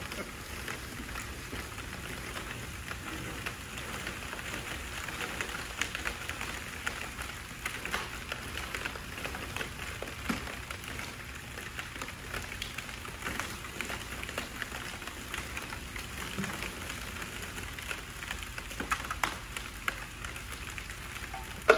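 Liquid nitrogen poured from a dewar onto a 55-gallon steel drum and its ice bath, boiling off with a steady crackling hiss like rain. A single sharp knock near the end.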